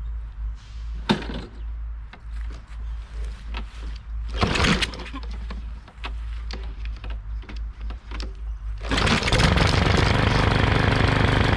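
A few knocks and clatters from the old lawn mower's small engine as it is worked to start. About nine seconds in, the engine catches and runs loud and steady, idling low despite its bent crankshaft.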